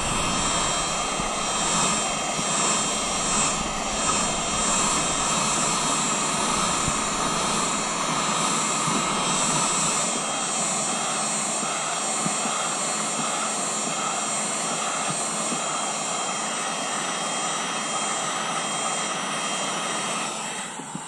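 Electric heat gun running steadily, its fan blowing hot air over the weathered plastic of a mailbox lid to restore its faded surface. The sound is an even rush of air with a thin steady whine.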